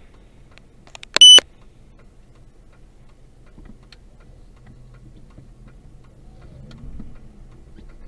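A single short, loud, high-pitched electronic beep about a second in, over the low steady rumble of the idling car.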